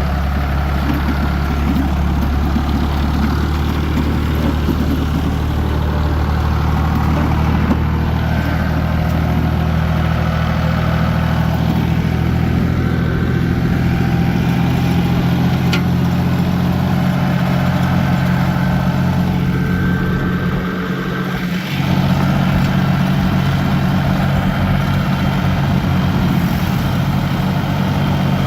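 Ford 445D diesel tractor engine running steadily, towing a dead tractor on a chain, with a brief dip in level about 21 seconds in.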